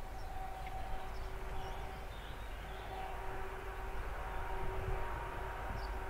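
Distant diesel locomotive hauling a passenger train, heard as a steady engine drone over a low rumble, with a few faint bird chirps.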